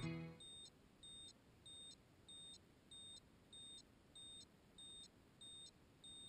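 Faint, high electronic beeps, about ten of them, short and evenly spaced at a little under two a second, after music fades out in the first half second.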